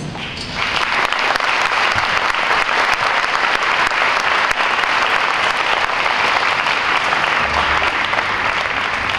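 Large audience applauding, many hands clapping together. It swells up just after the start, holds steady, and begins to fade near the end.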